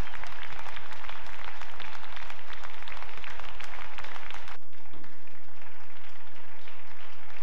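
Crowd applause: a dense clatter of many hands clapping that drops off abruptly about four and a half seconds in, carrying on fainter after that.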